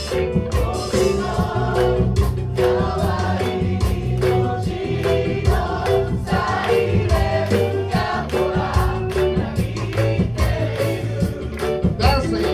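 A group of singers singing a pop song together in unison, with instrumental accompaniment and a steady beat.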